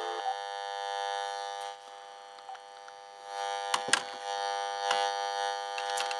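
Old alarm clock radio's speaker buzzing with interference from a VTech cordless phone switched to talk beside it: a steady electric buzz that drops away about two seconds in and returns about a second later. A few sharp clicks come near the end.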